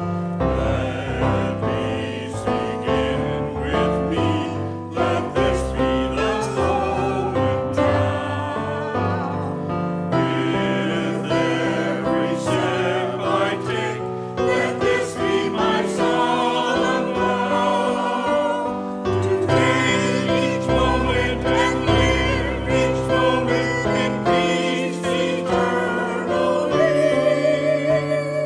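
Choir singing sacred church music, the voices wavering with vibrato over sustained low notes.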